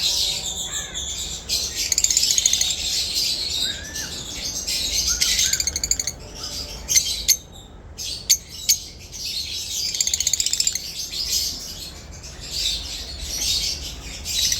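A pair of lovebirds chattering: rapid, high-pitched chirps and buzzy trills in bursts, with a few short, sharp louder calls about seven and eight and a half seconds in.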